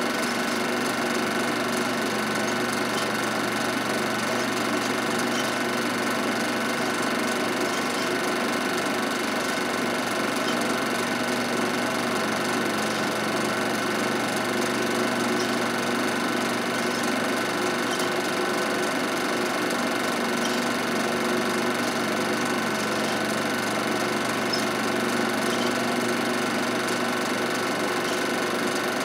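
Film projector running steadily, a constant mechanical hum and whir at an even pitch.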